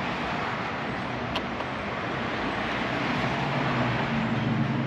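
Steady road traffic noise, with a vehicle's low engine hum growing louder near the end and a single faint click about a second in.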